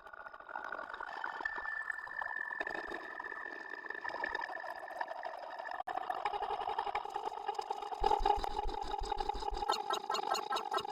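Electronic-sounding, processed drone: wavering held tones with a bubbling texture. It drops out for an instant about six seconds in and turns into fast, regular fluttering near the end.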